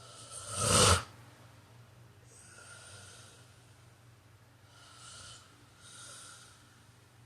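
A man snoring in his sleep. One loud snore builds and cuts off abruptly about a second in, followed by three much quieter, breathy breaths.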